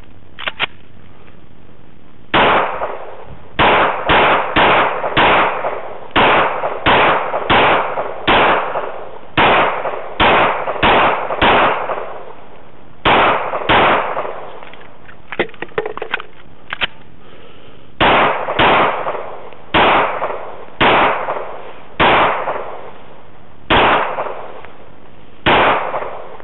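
Rapid competition gunfire: about two dozen shots from about two seconds in, fired in strings of two to five shots roughly half a second to a second apart, with short pauses between strings. Lighter clicks come in a pause about two thirds of the way through.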